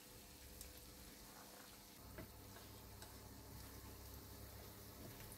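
Batter fritters frying in hot olive oil, giving a faint sizzle with a few small ticks scattered through it.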